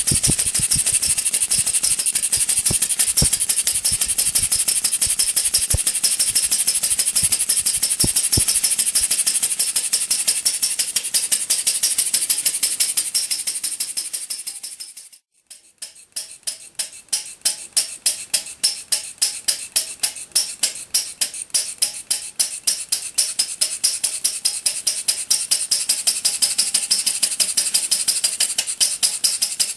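RMC Paradox model non-compression engine running on gasoline, fired by an old Ford buzz coil: a rapid, steady train of firing beats with a mechanical rattle. About halfway through the sound drops away for a moment, then comes back as clear, evenly spaced beats.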